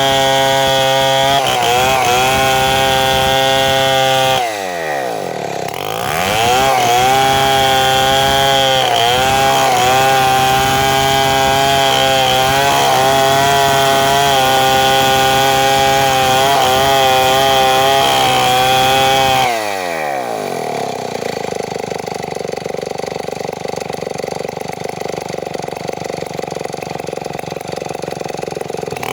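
Two-stroke chainsaw running at high revs. It drops briefly to idle about four seconds in and revs back up about two seconds later. It holds high speed until about twenty seconds, then falls back to a steady idle.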